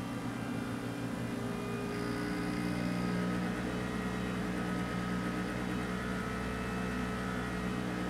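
Steady low hum made of several steady tones, growing a little stronger about two seconds in.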